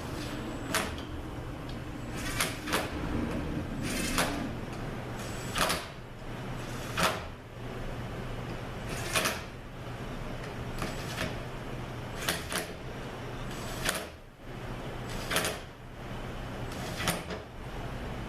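Hand ratchet clicking in single sharp clicks and pairs, about a dozen spread one to two seconds apart, as the bolts holding the two halves of a 904 transmission valve body are gently snugged down. A steady low hum runs underneath.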